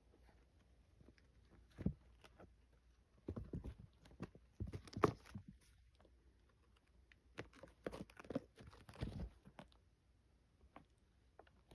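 Kittens scuffling and pouncing at a hat: irregular bursts of soft thumps, paw patter and claw scratching, in several short flurries.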